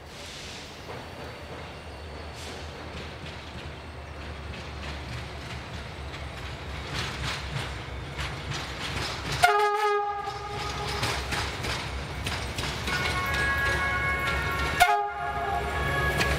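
GM-engined EGM diesel-electric locomotive approaching at the head of a passenger train, its diesel rumble growing steadily louder. It sounds its multi-tone horn twice, a short blast about halfway through and a second near the end that rings on.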